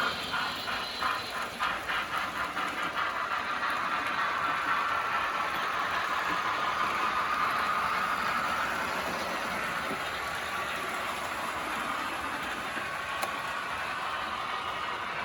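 Märklin model train running along the track. At first its wheels click over the rail joints several times a second, then it settles into a steady running hum.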